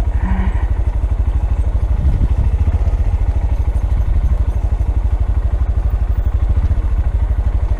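The 2015 Honda Grom's small single-cylinder four-stroke engine running steadily at low revs, a fast, even low pulsing with no revving.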